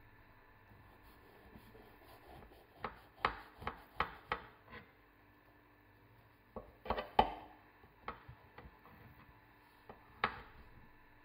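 A kitchen knife cutting through the crisp baked puff-pastry crust of an apple strudel. It makes short crackling crunches and clicks in clusters: a run of about five a few seconds in, a louder cluster midway, and a last sharp one near the end.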